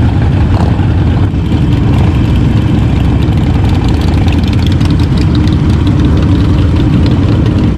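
Harley-Davidson motorcycle V-twin engines idling steadily, warming up before a ride.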